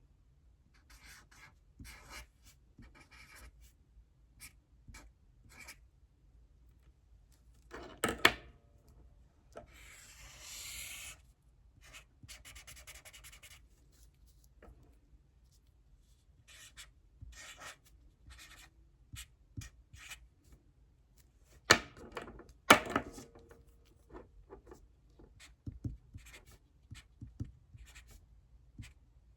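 Writing on paper: short scratchy strokes of a pen or pencil, with two stretches of rubbing a little after a third of the way in. Two louder knocks come about 8 s in and again near the middle, each a quick double.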